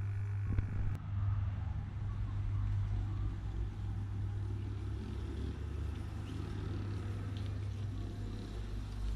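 Model electric tram running on a garden track, its motor and gearbox giving a steady low hum while the wheels rumble on the rails, the rumble growing as it approaches. The gear noise is put down to a gearbox whose lubricating grease has deteriorated.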